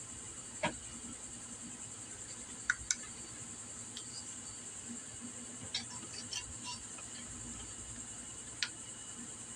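Faint, scattered metal clicks and light taps as a scooter piston and its wrist pin are handled and lined up with the connecting rod, about half a dozen over several seconds over a steady low hiss.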